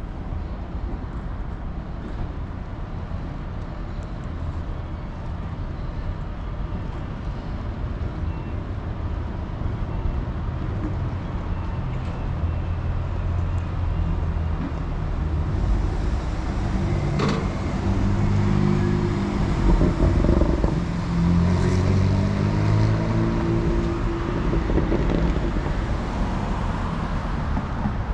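Street traffic: a steady low rumble that builds as a vehicle's engine hum passes close, loudest about two-thirds of the way through, with a single sharp click just before the peak.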